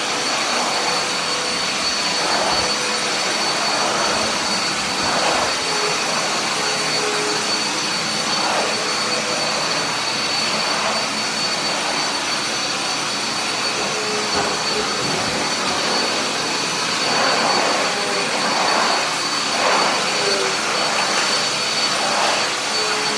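Upright vacuum cleaner running steadily with a high whine, pushed up and down over the floor, the level swelling slightly with each stroke.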